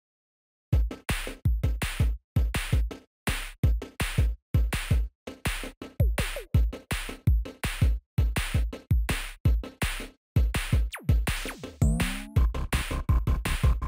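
Electronic background music with a drum-machine beat: punchy bass thumps and high ticks in a steady rhythm. It starts sharply under a second in, after a brief silence.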